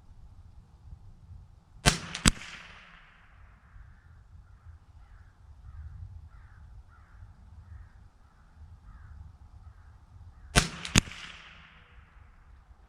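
Two rifle shots about nine seconds apart, each a doubled crack with a ringing tail. Between them a bird gives a run of about eight short calls.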